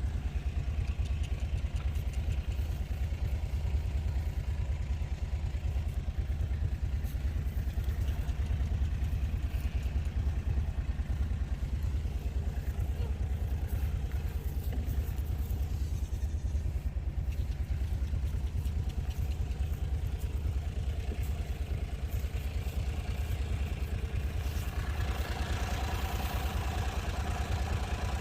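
Vehicle engine running steadily at low speed, a low even drone with a rapid pulse, a little fuller in the higher range during the last few seconds.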